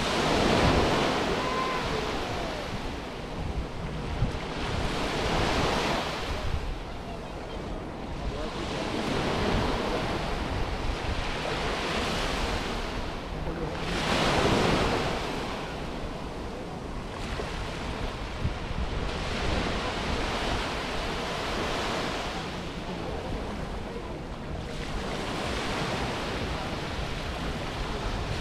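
Mediterranean sea waves washing up on a sandy beach, the surf swelling and fading every few seconds.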